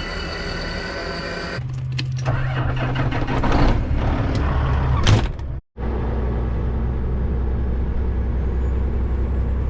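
Peterbilt semi truck's diesel engine running, changing to a louder rumble with clicks about a second and a half in. After a short break, a steady low rumble of the truck under way fades out at the end.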